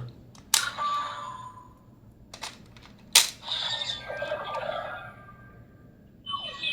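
Toy DX Ultraman Omega transformation device clicking as the Geed star stone is loaded and triggered: sharp plastic clicks about half a second and about three seconds in, each followed by electronic sound effects from its small speaker, with a falling electronic tone near the end.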